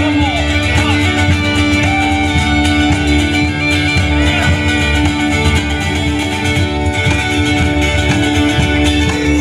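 Live folk-rock band in an instrumental break: a piped melody over a steady drone, with plucked guitar, upright bass and a cajon beat. The melody and drone come from uilleann pipes.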